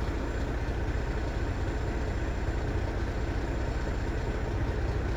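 Semi-truck's diesel engine running steadily, a low, even rumble heard from inside the cab.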